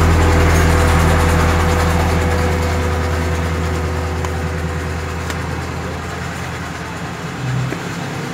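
Background electronic music: a held low bass drone with steady tones above it, slowly fading out.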